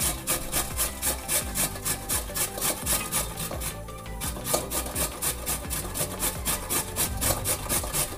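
Raw carrot being grated by hand on a metal box grater: rhythmic rasping strokes, about four a second, with a brief pause about four seconds in.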